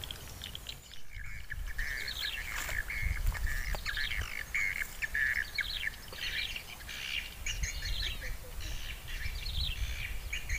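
Birds chirping and calling in quick, repeated short notes, over a low rumble.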